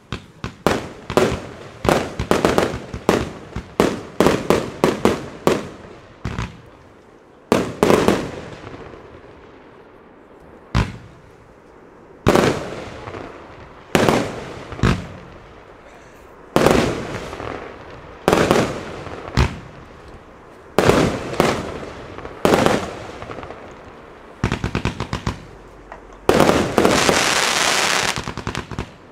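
A fireworks battery firing shot after shot: a fast cluster of launch thumps and breaking bursts, then single shells bursting about every second or two, each bang trailing off. It ends in about three seconds of dense crackling as the glittering stars go off.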